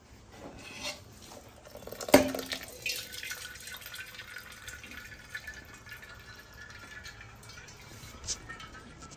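A metal kitchen vessel clanks sharply once about two seconds in and rings briefly. A faint steady high tone follows, with light water-like sounds.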